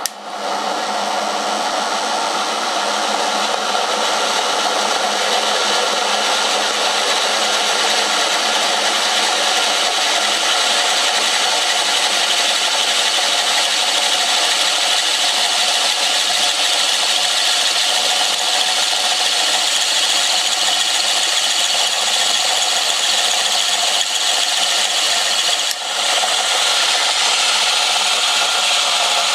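Homemade ball-bearing motor: an old washing-machine rotor spinning in its two ball bearings, driven by AC passed through the bearings, with the bearings' steel dust caps removed. It runs with a loud, steady whirring that builds over the first couple of seconds as the rotor spins up, with a brief dip near the end.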